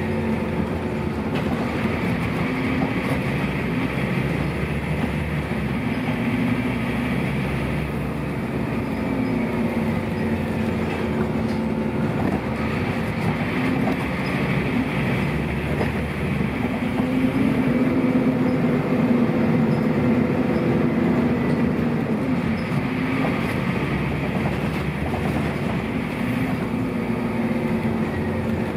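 Scania DC09 9-litre five-cylinder diesel of a Scania N230UB bus running under way, its pitch rising and falling repeatedly as it pulls through the ZF Ecomat automatic gearbox. About 17 seconds in, the engine's cooling fan cuts in and the noise gets louder for several seconds.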